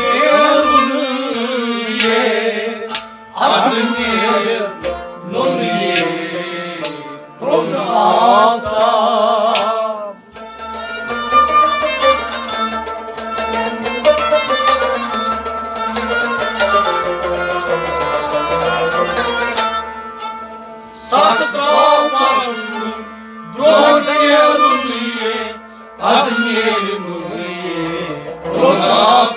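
Kashmiri Sufi kalam sung by a man to the beat of a clay pot drum struck by hand. For about ten seconds in the middle the voice stops and instruments play on over a steady low beat, then the singing returns.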